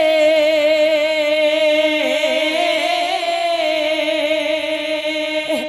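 A woman's singing voice holding one long note of a Braj folk jikdi song, with a slight waver around the middle, without drums; the note breaks off near the end.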